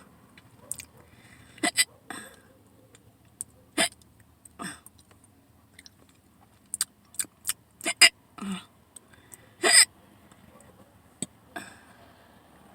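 A person hiccuping over and over: short, sharp, sudden hiccups a second or few apart, some with a brief voiced catch. The loudest comes near the end, and small clicks fall between them.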